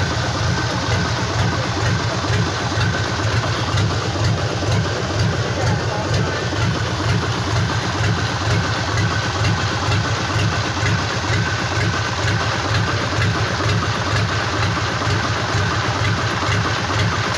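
Freshly rebuilt Mitsubishi Fuso D16 straight-six diesel engine idling steadily on a test stand after its rebuild.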